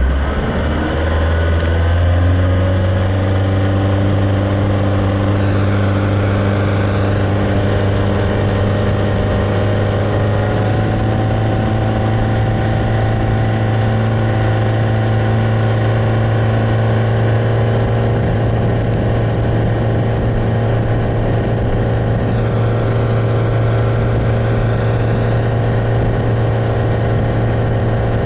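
Boat engine running steadily under way. Its pitch shifts over the first second or two after a throttle change, then holds even.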